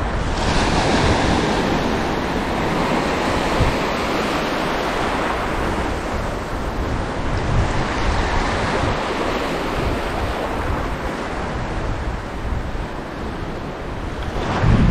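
Heavy surf breaking on the shore, mixed with strong wind buffeting the microphone in an uneven low rumble, with a stronger gust near the end.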